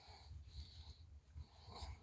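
Faint breathing of a Shiba Inu, soft breathy puffs about once a second.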